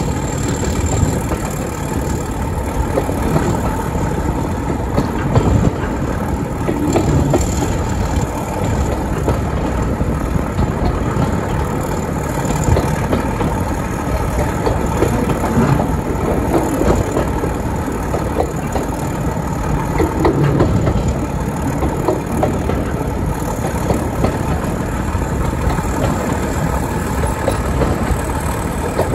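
Steady running rumble of a railway train on the move behind a Class 31 diesel locomotive, wheels and coach rattling on the track with small irregular knocks throughout.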